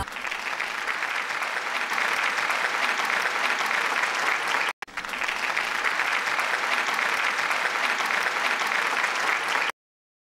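Applause, many hands clapping densely and steadily. It breaks off for a split second about halfway through and cuts off abruptly shortly before the end.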